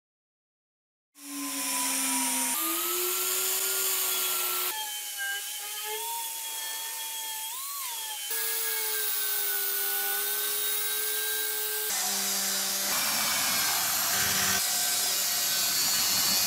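Angle grinder running a felt polishing wheel against a kukri's steel blade with polishing compound: a steady motor whine over a rubbing hiss, its pitch wavering as the wheel is pressed on. It starts after about a second of silence and changes abruptly several times.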